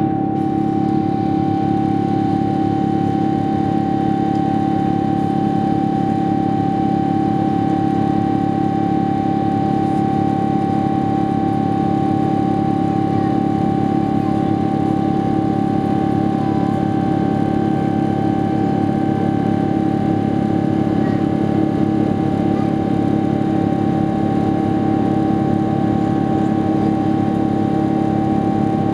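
Boeing 777-200ER's GE90 turbofan engines at climb power, heard inside the cabin over the wing: a steady, loud drone with a constant high fan tone over a low hum.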